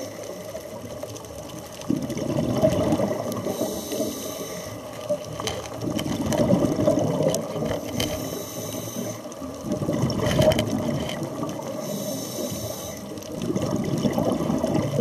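Scuba diver breathing through a regulator underwater: the low bubbling rush of each exhale alternates with the hiss of air drawn through the regulator, about four breaths in a slow, even cycle.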